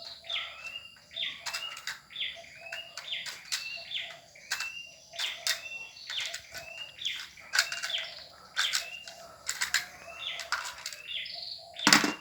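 A bird chirping over and over in short, sharp notes, about one or two a second, with a single louder sharp click near the end.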